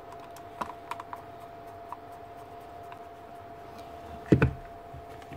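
Light clicks and taps of hard plastic and metal parts being handled as a brushless motor and its plastic housing are fitted together, with one louder knock about four seconds in, over a steady faint hum.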